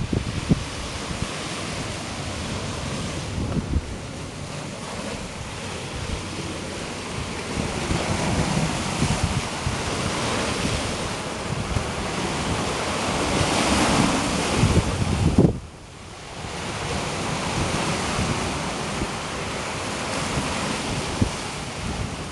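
Rough sea surf breaking and washing against a rocky shore, with wind buffeting the microphone. The rush swells to its loudest about two-thirds in, then drops off abruptly and builds again.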